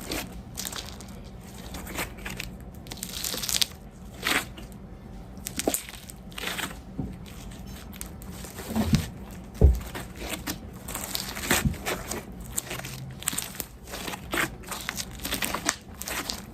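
Homemade Elmer's glue and borax slime being squeezed and worked by hand, making an irregular run of crackling clicks and pops, a few louder ones a little past halfway.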